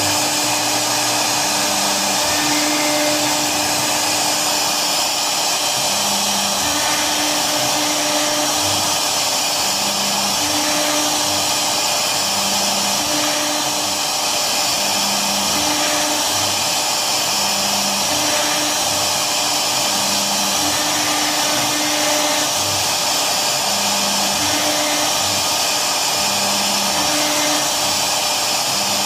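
CNC router spindle running steadily while its bit cuts grooves into a wood board, a constant whirring hiss. A lower hum switches on and off every second or two as the cutting head moves along the pattern.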